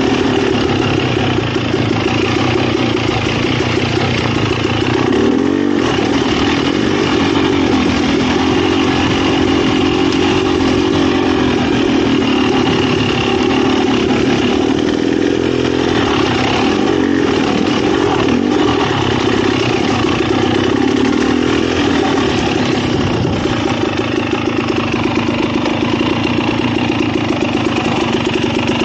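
Dirt bike engine running under the rider, its note rising and falling as the throttle is opened and closed on a trail.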